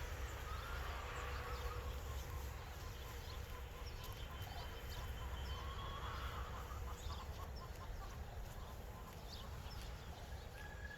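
Chickens clucking faintly in the background over a steady low rumble.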